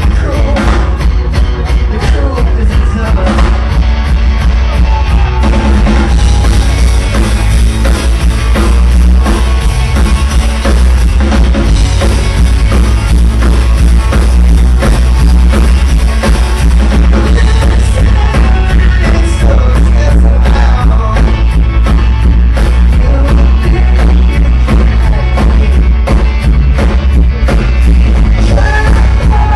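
Live indie rock band playing at full volume: drum kit pounding at a fast, steady beat under electric guitars and bass, with a singer's voice in the mix. The recording is very loud and heavy in the low end, close to clipping.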